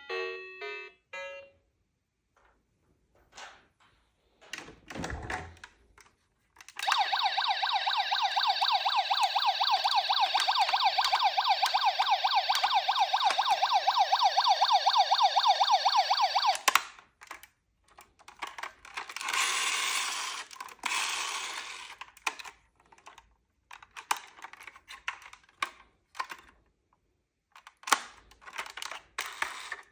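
Toy ambulance's electronic siren sounding in a fast warble for about ten seconds, then cutting off abruptly. Around it come plastic clicks and knocks, a dull thump and a short rattle.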